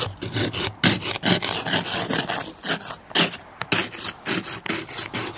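Frozen snow and ice being scraped off a car's glass in repeated strokes, about two or three a second.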